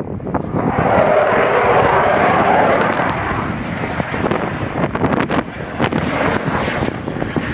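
Loud jet noise from a Eurofighter Typhoon's twin EJ200 turbofan engines. It swells about half a second in, is loudest for the next few seconds, then eases off. Wind buffets the microphone throughout.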